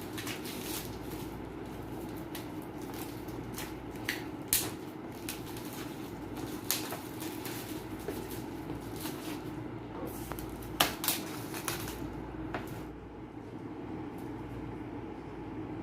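Laptop box and its packaging being opened and handled: scattered rustles and clicks, the loudest about four and a half seconds in and again near eleven seconds, over a steady background hum.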